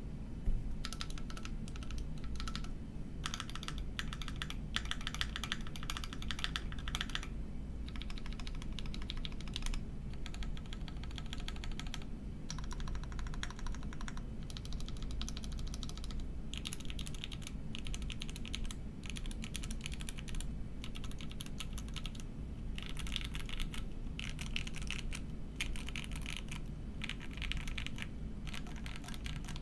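Typing on a Cannon Keys Rekt1800 custom mechanical keyboard with lubed FFF linear switches, an FR4 plate and GMK keycaps: steady runs of fast keystrokes broken by short pauses every few seconds.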